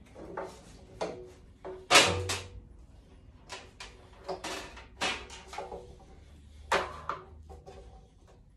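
An irregular series of light metallic knocks and clatters from parts being handled on a BSA C15 motorcycle, some with a short ring. The loudest knock comes about two seconds in and another near the end.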